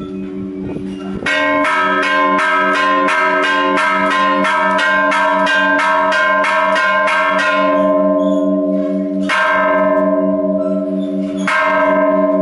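Church bells of Iglesia La Merced ringing loudly: after a lingering hum, a fast run of strikes, about three a second, starts a second in and goes on for several seconds, followed by two single strikes near the end, each ringing on.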